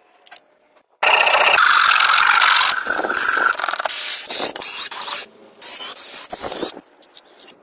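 A hand tool scraping along the edge of PVC sheet to trim it. A loud rasping scrape starts abruptly about a second in, with a high squeal for the first two seconds or so, then shorter uneven strokes that stop near the end.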